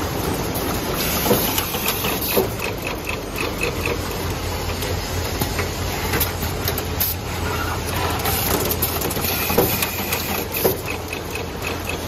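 Automatic wire cutting, stripping, crimping and housing-assembly machine running: a steady hum with a hiss of air, runs of rapid light ticking, and a few sharp clacks from its moving mechanisms.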